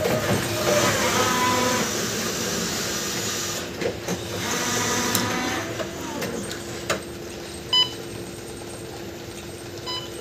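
Electric reach truck driving and turning, its drive motor giving a steady hum over a rushing noise that is loudest in the first few seconds. A short electronic beep sounds twice, about eight seconds in and near the end.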